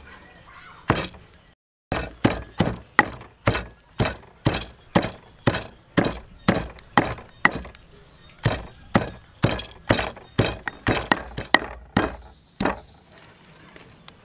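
Long wooden pestle pounding herbs and turmeric into a paste in a stone mortar: a steady run of sharp thuds, about two a second. The pounding breaks off for a moment near the start and stops shortly before the end.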